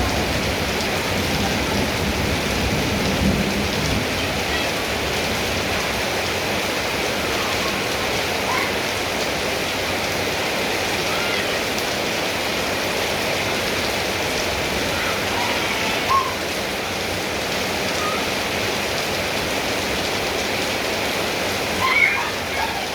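Steady rain falling, an even wash of noise with a few brief louder moments.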